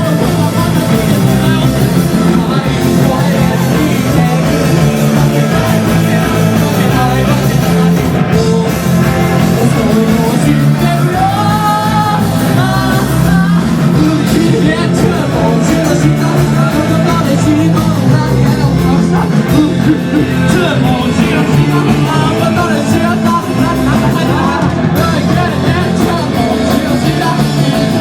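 Live rock band playing a song with a singer's vocals, loud and dense throughout.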